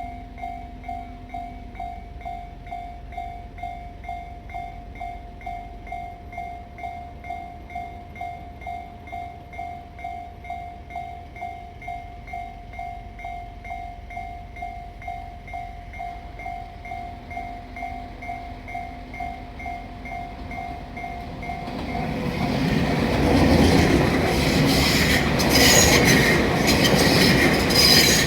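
Japanese level-crossing warning bell ringing steadily, about two dings a second. About 22 seconds in a Tobu Skytree Line train passes, its loud running noise building up and drowning out the bell.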